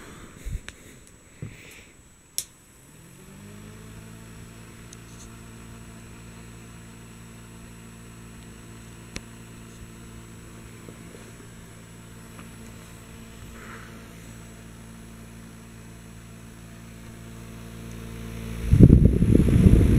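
Small one-speed electric desk fan in a cat-shaped metal mesh housing, switched on with a click and spinning up to speed within about a second, then running steadily with a low hum. Near the end, its air blows loudly across the microphone held up close.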